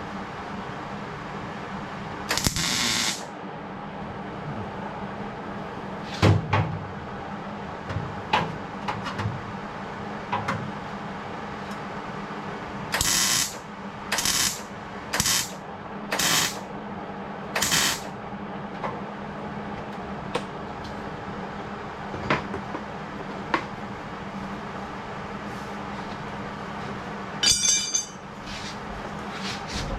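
Workshop sounds: a steady hum with seven short hissing bursts, each under a second (one early, a run of five in quick succession midway, one near the end), and scattered single knocks of metal work.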